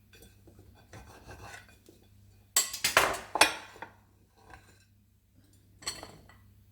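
Kitchen dishes and utensils scraping and clinking as diced bread is handled, with a louder run of scrapes about two and a half seconds in and a short one near the end.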